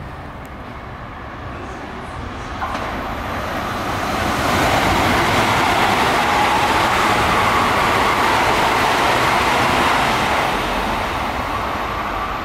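Electric train passing through a station at high speed, without stopping: the rush of wheels and running gear builds over the first few seconds, stays loud for about five seconds in the middle as the cars go by, then fades.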